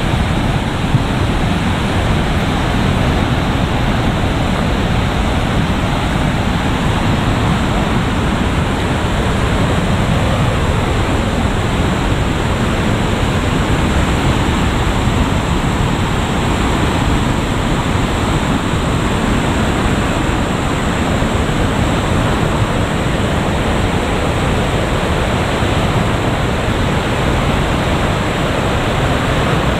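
Floodwater of a swollen creek rushing over rocks, a loud, steady roar of water.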